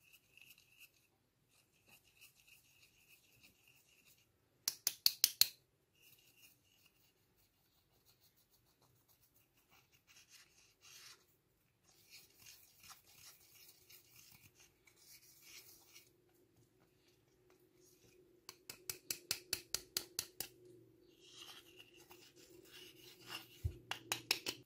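Plastic stick scraping and crushing pressed powder makeup in its compact pan. It goes in runs of quick scratching strokes, about six a second, loudest around five seconds in and again near the end.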